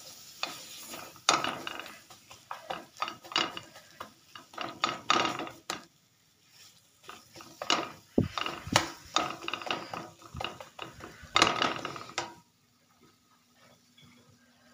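Slotted spatula scraping and knocking against a stainless frying pan as a thick, sticky date-and-nut mixture is stirred off the heat. The strokes come quickly, pause briefly about six seconds in, and stop about twelve seconds in.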